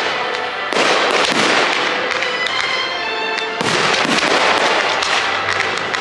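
Aerial fireworks bursting overhead: one big burst just under a second in and another a little past halfway, each fading out slowly. Music with held notes plays under them.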